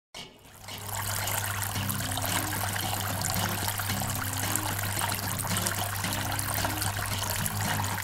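Water from a small tabletop fountain falling from its upper tub into the lower tub, a steady splashing trickle. Low background music comes in about two seconds in.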